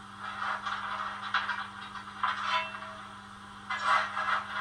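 Model LMS 8F steam locomotive's DCC sound decoder playing standing-engine sounds through its small speaker: irregular hissing and rustling noises every second or so over a steady low hum.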